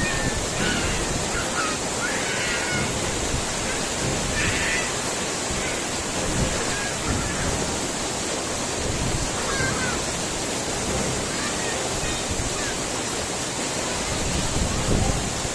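Waterfall rushing steadily: an even roar of falling water with no breaks.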